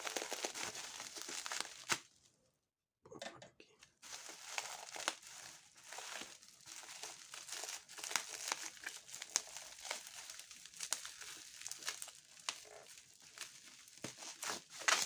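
The packaging of a USB 3.0 PCI Express card being torn open by hand, no knife used: continuous crinkling and tearing with small clicks and crackles, pausing briefly twice early on.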